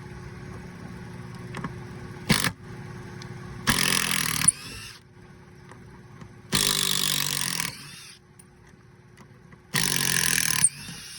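Makita impact driver hammering in three bursts of about a second each, backing screws out of a roof anchor, with a short blip about two seconds in.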